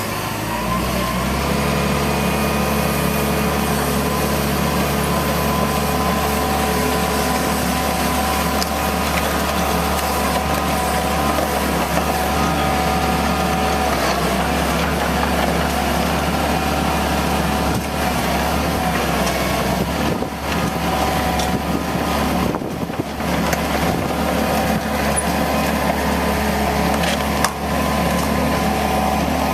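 Hitachi EX120 hydraulic excavator's diesel engine running steadily with a constant whine, briefly dipping twice in the second half.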